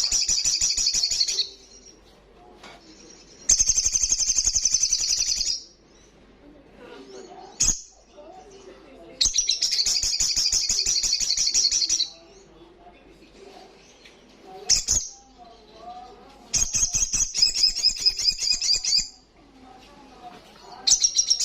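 Olive-backed sunbird singing: loud, high, rapid trilled phrases of two to three seconds, repeated every few seconds, with short single calls in between.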